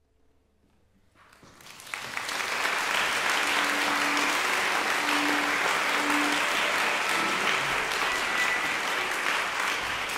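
A hush as the last note of the music dies away, then a concert audience starts clapping about a second in and quickly builds to full, steady applause.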